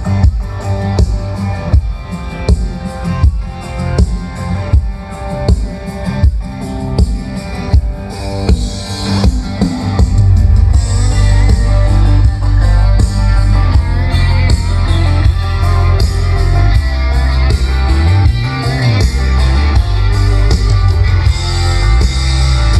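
Rock music with guitar and drums played loud through outdoor PA loudspeakers, with a steady beat; about ten seconds in, a heavy sustained bass comes in and the music gets louder.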